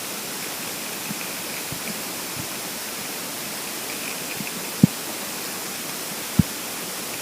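Empty, hungry stomach gurgling: a few short, low pops, the two clearest in the second half, over a steady recording hiss.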